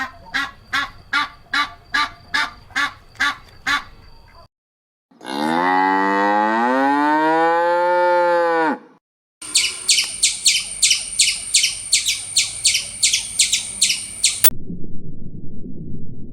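A cow mooing once in the middle: one long call of about three and a half seconds that rises and then falls in pitch. Before it comes a steady run of short calls, about two a second. After it come fast, high-pitched chirps, about four a second, that stop abruptly.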